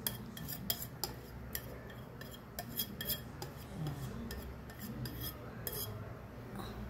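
Scattered light clinks and taps of kitchen utensils against a mixing bowl and a steel baking pan while thick banana cake batter is poured and scraped into the pan.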